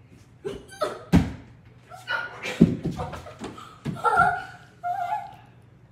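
Bare hands and feet thumping on a wood-look laminate floor during a failed round-off, a series of thumps with the heaviest about a second in and again about two and a half seconds in as the gymnast lands on the floor. A girl's laughter and breathy vocal sounds follow.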